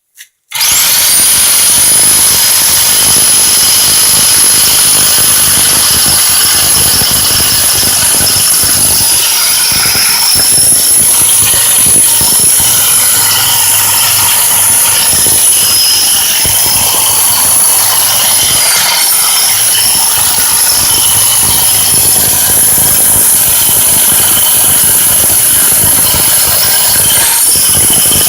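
Bauer 10-amp SDS rotary hammer starting up about half a second in and running continuously in hammer-drill mode, its SDS bit hammering into thick concrete. Its high whine holds steady and dips briefly twice.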